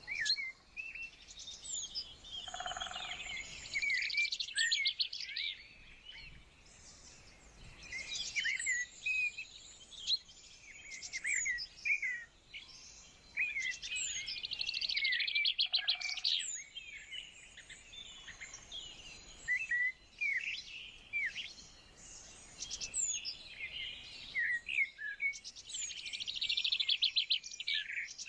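Several songbirds singing and calling: many short chirps and whistles overlapping, with a fast trill that comes back three times, about every twelve seconds.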